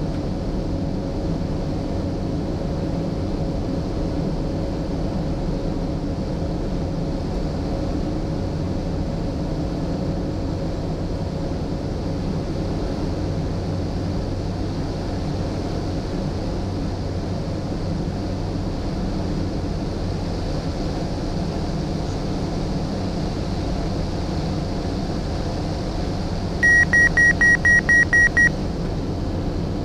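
Cessna 208B Caravan's Pratt & Whitney PT6 turboprop engine and propeller droning steadily in the cockpit on final approach, with a faint steady tone that fades out about ten seconds in. Near the end comes a quick run of about eight high beeps.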